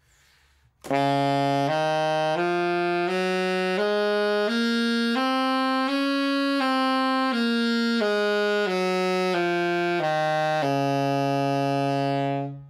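Alto saxophone playing a one-octave B-flat major scale, slurred without tonguing, from low B-flat up to middle B-flat and back down, each note about two-thirds of a second and the final low B-flat held about two seconds. It is played with a loose, open embouchure, the whole scale blown as if playing a low B-flat, to keep the tone full.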